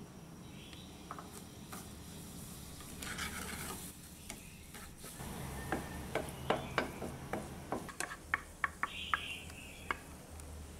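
A wooden spatula stirs sugar-and-water caramel bubbling in a nonstick pan, a soft sizzle under it. Through the second half the spatula scrapes and knocks against the pan in a quick run of sharp clicks.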